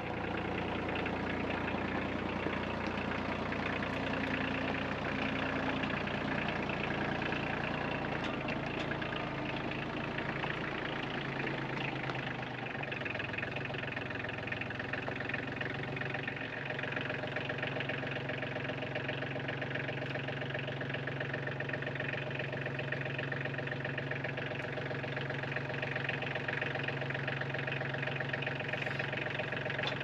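Compact tractor's diesel engine running steadily while its front loader lifts a log onto a sawmill bed. The engine note shifts a little partway through.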